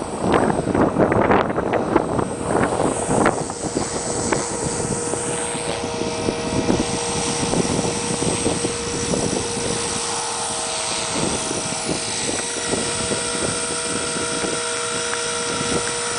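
Electric RC helicopter (Align T-Rex 400) running with a steady whine from its motor and rotor. Gusts of wind buffet the microphone for the first few seconds.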